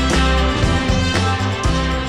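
Background music with guitar and a strong bass line.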